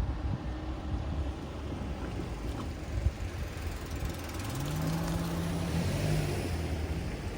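A passing motor vehicle's engine. Its note rises about four seconds in, then holds steady for a couple of seconds.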